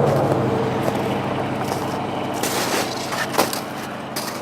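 A motor vehicle engine running steadily, its hum slowly fading. A brief sharp click comes about three and a half seconds in.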